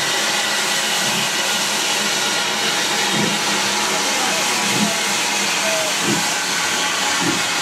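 Saddle-tank steam locomotive pulling slowly away: a steady loud hiss of escaping steam, with slow exhaust chuffs about once a second starting some three seconds in.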